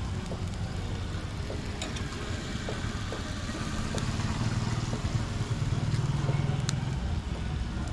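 Motor vehicle engine running close by over a steady low traffic rumble, swelling louder for a moment about six seconds in, with a few faint clicks.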